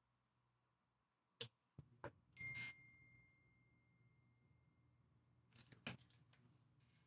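Quiet room with a few sharp clicks of small tools being handled at a bench vise. About two and a half seconds in, a phone notification sounds: a brief buzz and a single high ding that rings on for a couple of seconds.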